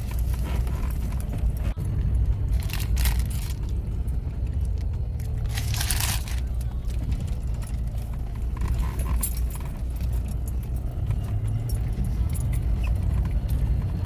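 Steady low rumble of a car on the road, heard from inside the cabin, with a few brief rustles on top, the loudest about six seconds in.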